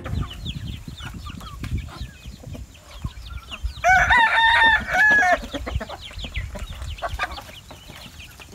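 Flock of chickens clucking and cheeping with many short, high calls, and a rooster crowing once about four seconds in, loud and lasting about a second and a half.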